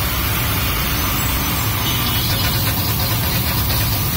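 Long metal spatula scraping and stirring frying onions in a steel wok, with a run of repeated scrapes from about two seconds in, over a steady low rumble.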